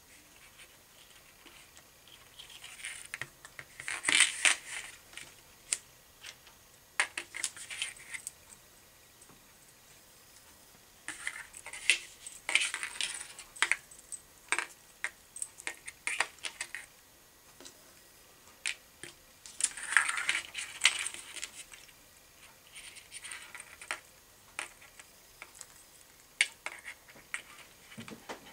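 Small metal fishing tackle (hooks and the thin arms of a fishing rig) clicking and scraping as fingers handle it and attach the hooks, against a hard tabletop. Bursts of quick light ticks come and go, with short quiet gaps between them.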